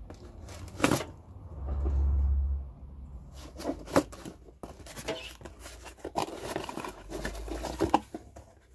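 A knife cutting through packing tape on a cardboard box and the box being opened, with sharp taps, scraping and cardboard rustling. A short low rumble of handling comes about two seconds in.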